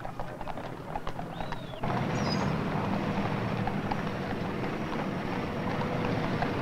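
Horse hooves clip-clopping for about two seconds, then an abrupt change to a steady, louder low mechanical rumble with a faint steady hum.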